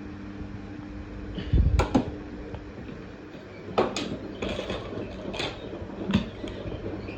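LG F1222TD washing machine drum rumbling with a low hum and several sharp clunks, the heaviest a deep thud about two seconds in: the drum bearings and bearing seal have failed.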